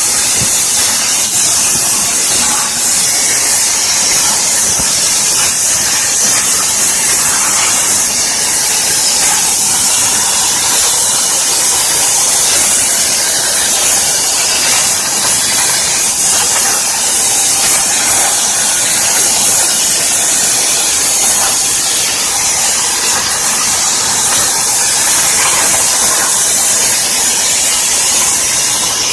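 CNC plasma cutting torch running steadily as it cuts metal: a loud, even hiss that stays unchanged throughout.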